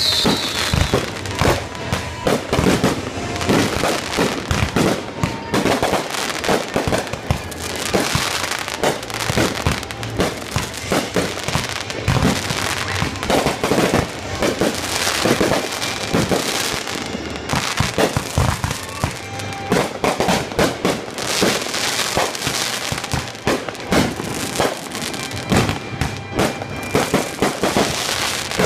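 Fireworks going off in a rapid, continuous barrage: many shells bursting close together, each bang overlapping the next, with crackling throughout.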